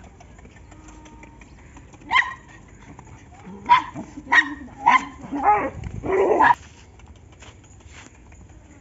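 A dog barking about six times in quick, uneven succession, starting about two seconds in; the last bark is longer.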